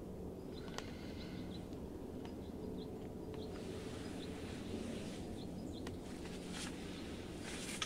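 Quiet outdoor ambience: faint, short bird chirps over a low, steady hum. Near the end comes rustling of clothing or blind fabric as a rifle is reached for, then a sharp click.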